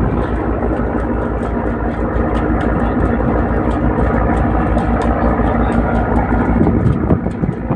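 Boat engine running steadily with a rapid, even low throb.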